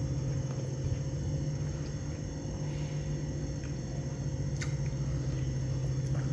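Steady low background hum with faint, steady high-pitched tones above it, and a single faint click about four and a half seconds in.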